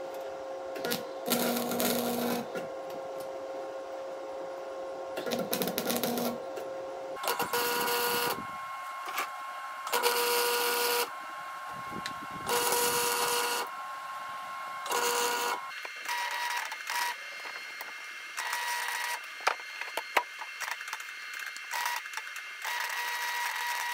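Wire-feed welder's arc crackling on steel pipe in short bursts of one to two seconds with pauses between, as welds are laid one after another. Near the end the bursts become shorter and quicker, like tack welds.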